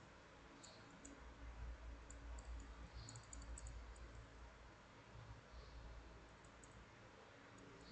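Faint, scattered light clicks of a metal wire puzzle's loops knocking together as it is handled, with a cluster of quick clicks a few seconds in, over a low steady hum.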